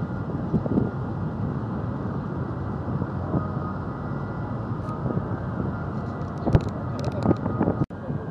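Wind buffeting the microphone in gusts over a steady low rumble, with a few sharp knocks about six and a half to seven and a half seconds in. The sound drops out for an instant near the end.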